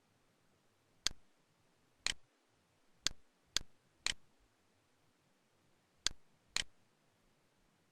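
Computer mouse clicks, seven single sharp clicks spaced about a second apart, some in quick pairs half a second apart.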